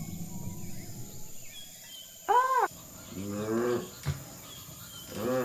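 Brachiosaurus calls from the film's dinosaur sound effects, over faint insects and birds. A short hooting call rises and falls about two seconds in. Under a second later comes a longer, lower call that falls in pitch, then a brief low thump and a short call near the end.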